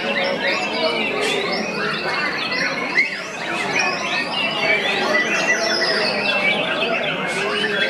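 White-rumped shama singing in a dense chorus of many caged songbirds, overlapping whistles, trills and chatters with no break. A short sharp sound stands out about three seconds in.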